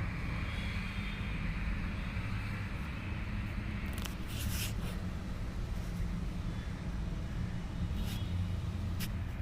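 A steady low mechanical hum, with a few light clicks about four seconds in and again near the end.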